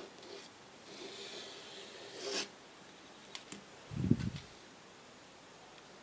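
A drawing compass's pencil lead scraping softly on paper card for about a second and a half, swelling just before it stops. Then come two light ticks and a dull thump about four seconds in as the compass is handled and set against the card.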